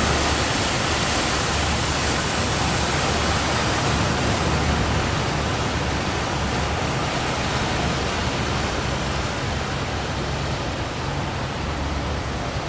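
Steady, even rush of big surf and wind at the sea, with no separate crashes, easing slightly near the end.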